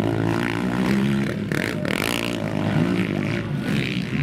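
Several racing quad (ATV) engines revving hard as the quads climb a motocross jump, their pitch rising and falling with the throttle.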